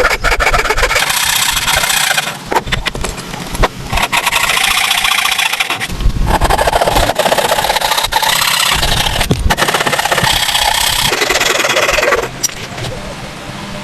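Wood being cut or shaved by a woodworking tool in several sustained rasping passes of one to three seconds each, with short pauses between them.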